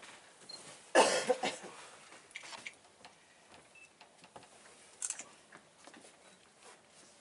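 A single cough close to the microphone about a second in, with a few faint knocks and rustles around it on an otherwise quiet boat deck.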